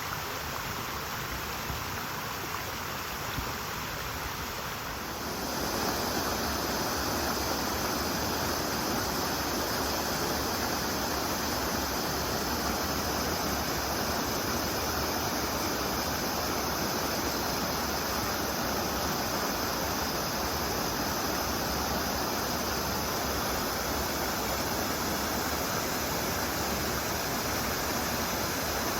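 Mountain stream rushing and babbling over rocks, a steady wash of water noise that grows louder and fuller about five seconds in.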